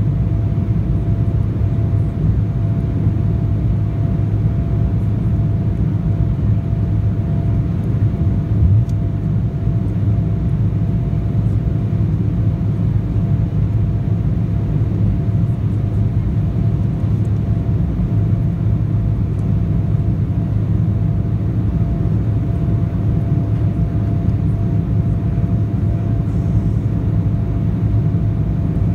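Cabin noise of an Embraer E175 climbing after takeoff: the steady rumble of its wing-mounted General Electric CF34 turbofans and the airflow, with a thin steady tone running through it. There is one brief low thump about nine seconds in.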